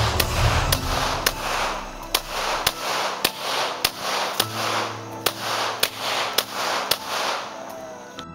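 Glock 17 9 mm pistol firing a string of shots, about two a second, over background music with a steady beat.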